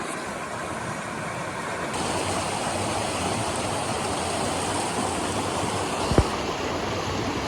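Steady rushing of a waterfall's falling water, which gets slightly louder and brighter about two seconds in, with a single brief low thump about six seconds in.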